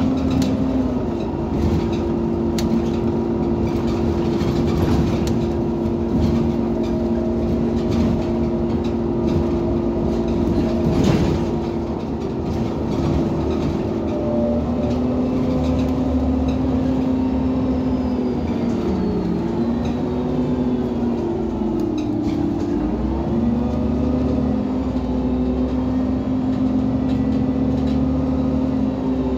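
Irisbus Citelis 18 articulated city bus with its Iveco Cursor 8 natural-gas engine idling at a standstill: a steady drone with a whine whose pitch wavers and dips about halfway through, then settles again. A single short knock about eleven seconds in.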